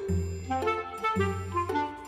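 Background music: a melody played on a wind instrument such as clarinet or saxophone over a bass line.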